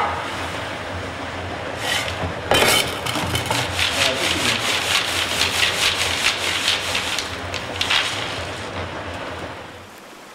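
Hard sugar-coated boiled sweets rattling and rustling as they are poured and shaken in a round sieve, starting about two and a half seconds in and dying away by about nine seconds, over a steady low machine hum.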